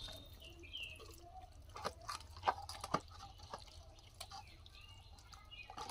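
Wet marinated mutton pieces being packed by hand into a clay pot: soft squelches with scattered light knocks and clicks.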